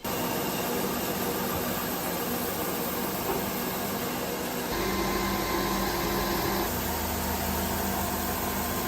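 Woodworking machinery running steadily: an even rushing noise with a few constant hum tones, a deeper hum joining about five seconds in.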